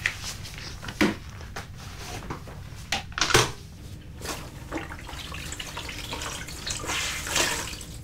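Wet floor mop being worked with water: splashing and dripping, with several sharp splashes and knocks, the loudest about a second in, around three seconds in and again near the end.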